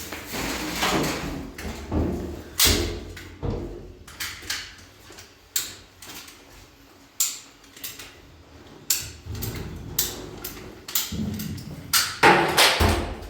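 A run of irregular sharp knocks and clatters of hard objects being handled, with a denser flurry near the end.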